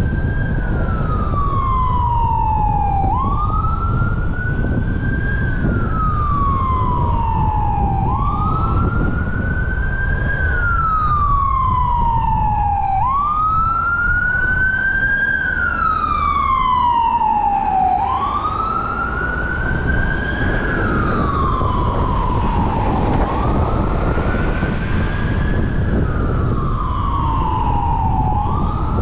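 Emergency vehicle siren on a slow wail: the pitch rises quickly and falls more slowly, over and over, about every five seconds. Steady road noise runs beneath it.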